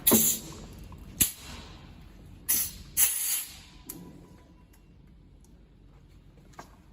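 Compressed air hissing in short bursts, about four in the first few seconds, the longest near the middle, as an air line is connected to the soldering machine's pneumatic cylinder.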